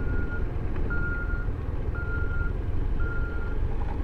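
Backup alarm of a reversing construction machine: a steady, high-pitched beep about half a second long, repeating about once a second, over a constant low rumble.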